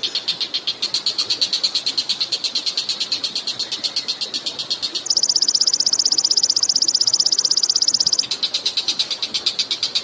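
A recorded high-pitched animal trill: an even run of fast chirps, about ten a second. About five seconds in it gives way to a louder, higher, faster trill for some three seconds, then the first trill returns.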